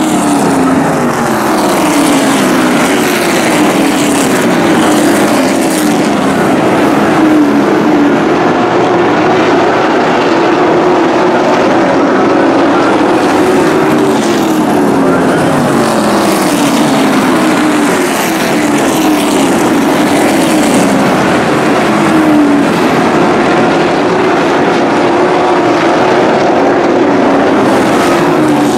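A pack of short-track race trucks racing at full throttle on a paved oval, many engines running loud at once. Their engine notes slide down and climb back up again and again as the trucks lift into the turns and accelerate down the straights.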